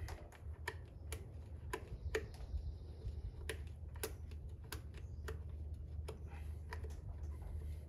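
Irregular light clicks and taps, roughly two a second, from hand tools and fittings being worked on the fuel bowl's hose lines.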